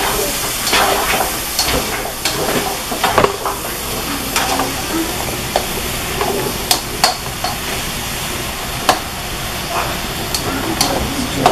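Diced zucchini and yellow squash sizzling in a skillet while a silicone spatula stirs them, the spatula scraping and clicking against the pan now and then.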